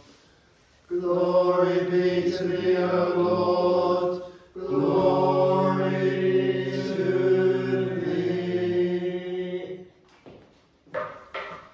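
Orthodox liturgical chant: voices singing long held notes in two phrases, with a brief break about four and a half seconds in.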